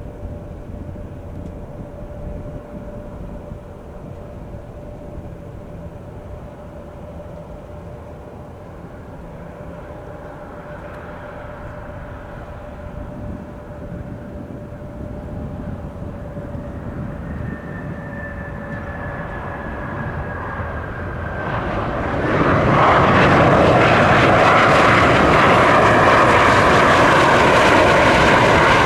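Jet engines of a Mitsubishi CRJ-700 regional jet, two rear-mounted turbofans: a steady whine and rumble with a slowly falling high whine, then about three-quarters of the way in the jet noise rises sharply to a loud roar that holds to the end.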